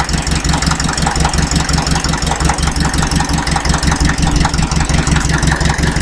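Diesel engine of a Fiat 352C crawler tractor running steadily, with an even, rapid diesel knock.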